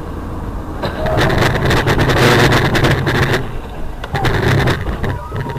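A car driving on a wet road, heard from inside the car: steady road and engine noise. A louder rush full of crackling comes in about a second in and lasts a couple of seconds, with a shorter burst just past the middle.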